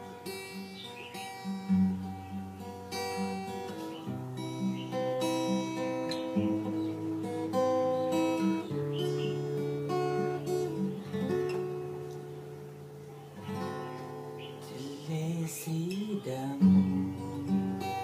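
Steel-string acoustic guitar played solo, chords picked and strummed with the notes ringing on, changing every second or so.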